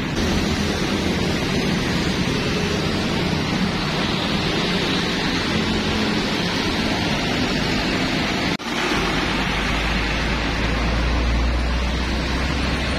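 Diesel engines of intercity buses pulling away along a busy road, over steady traffic noise. A brief break comes partway through, after which a bus's low engine drone close by is loudest.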